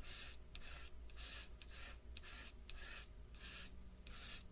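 Soft chalk pastel stroking across paper, a faint scratchy hiss repeated about twice a second.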